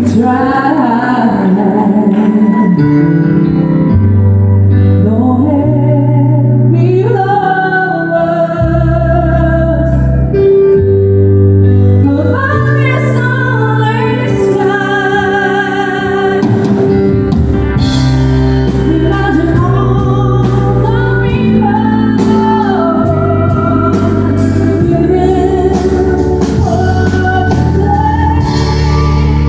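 A woman sings a slow song live through a microphone, with vibrato on the held notes, accompanied by an electric keyboard playing chords and bass notes. A drum beat joins about halfway through.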